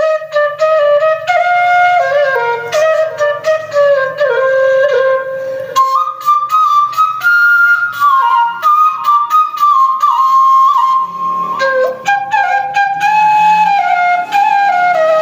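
Bamboo transverse flute (bansuri) playing a Pashto folk melody solo, moving in steps through a lower range, climbing about an octave some six seconds in and dropping back down near twelve seconds.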